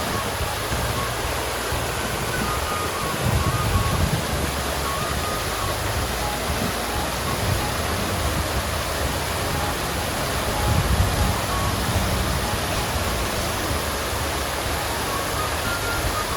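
Water fountain splashing and pouring steadily.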